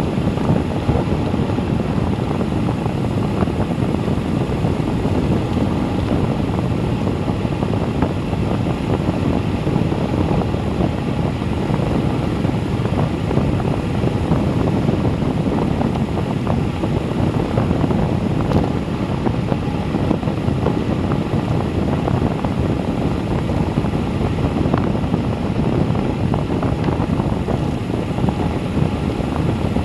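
Steady wind rush buffeting a bike-mounted action camera's microphone while the bicycle coasts downhill at about 37 mph.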